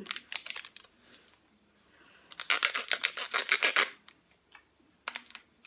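Small plastic sachet of massage cream being handled and opened: crisp crinkling clicks, with a dense run of them lasting about a second and a half in the middle and a few more near the start and end.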